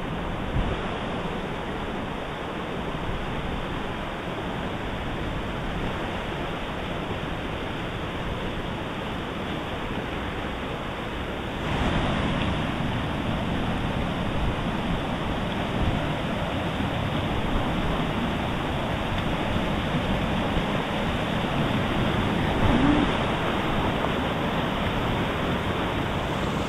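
River Okement in full spate: fast-flowing water rushing over rocks as a steady rush that becomes louder about halfway through.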